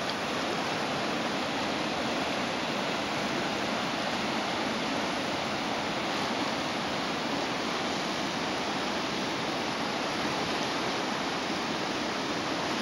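Whitewater rapids: a steady, unbroken rush of churning river water.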